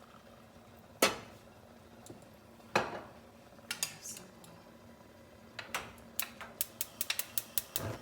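Kitchen utensils knocking against a pot: two loud knocks, then a quick run of light clicking near the end.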